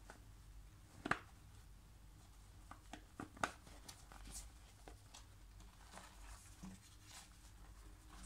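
Faint handling noise of a disposable cup-shaped respirator mask and its straps being turned in the hands: soft rustles and scattered light ticks, the sharpest about a second in and another about three and a half seconds in.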